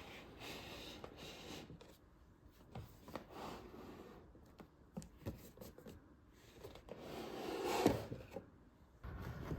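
Soft handling noises: rubbing and sliding with a few light knocks, and a longer, louder slide about eight seconds in.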